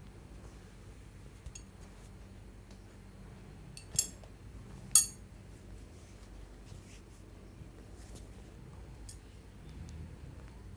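Two sharp clicks about a second apart, the second louder, with a few faint ticks around them over a low, steady background hum.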